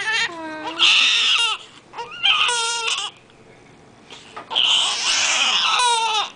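Newborn baby crying in three loud wails, with a quiet pause of about a second after the second one; the last wail is the longest. The crying is taken by the mother for hunger, the baby wanting to feed again.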